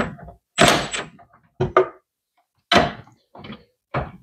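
Milwaukee cordless hex impact driver giving a brief burst about half a second in, then several short knocks and clatters of the tools against the ECU bracket, while the 10 mm ECU mounting bolts are being run in.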